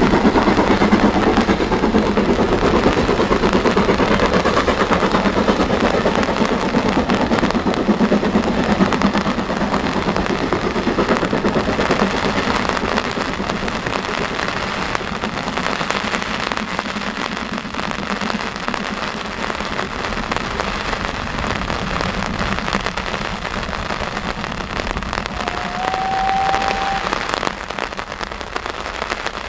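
Steam train running past and fading away in heavy rain, the rain crackling on the microphone throughout. A short whistle note sounds near the end.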